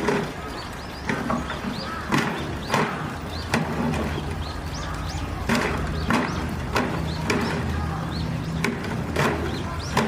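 Irregular sharp knocks and clicks, roughly one or two a second, over a low steady hum, with small birds chirping briefly now and then.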